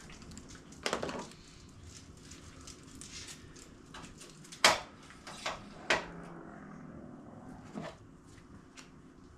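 Scattered clinks and knocks of metal tools and parts being handled while taking an engine apart, about four sharp ones, the loudest a little before five seconds in.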